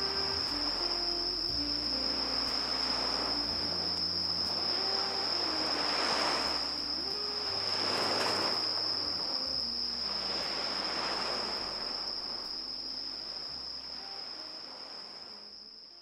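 An insect trilling steadily at one high pitch, over quiet background music of slow, sustained low notes, with a couple of soft swells of rushing noise midway. Everything fades out near the end.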